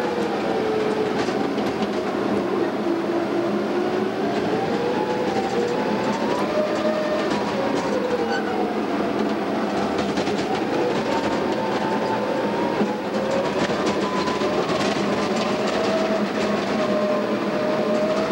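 Caterpillar D8 crawler dozer heard from its cab: the diesel engine running hard as the machine moves, its pitch slowly rising and falling, over the clatter of its steel tracks.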